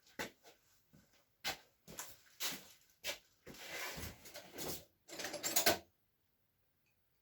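Irregular knocks, clinks and short scrapes of metal parts and tools being handled on a workbench, stopping abruptly about six seconds in.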